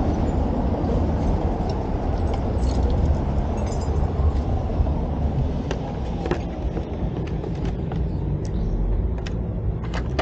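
Motorcycle running on the road, a steady low rumble of engine and road noise picked up from the bike, with scattered light clicks and rattles.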